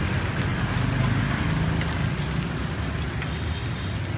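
Sticky rice cakes deep-frying in pans of oil, a steady sizzle, over a low rumble.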